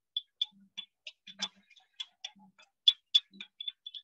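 Egg frying in hot oil in a pan: scattered sharp crackles and pops at an irregular pace.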